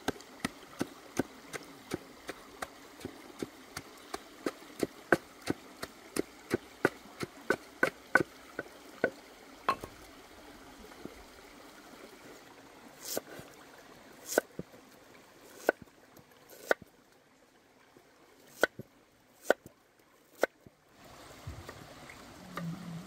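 A pestle pounding in a mortar with sharp knocks at about two a second. About ten seconds in, this gives way to a handful of louder, widely spaced knocks. A stream trickles underneath.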